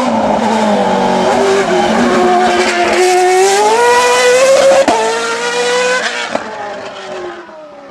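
Hillclimb race car engine at high revs: the pitch climbs through a gear, drops sharply at a gear change about five seconds in, then sinks and fades as the car gets farther away.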